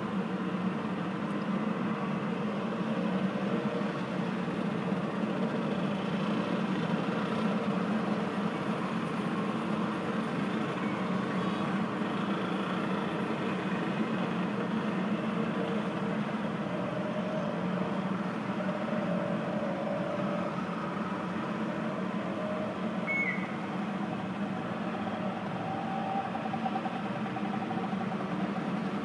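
Motor scooter engines and street traffic making a steady, muffled hum, with engine notes coming and going in the second half.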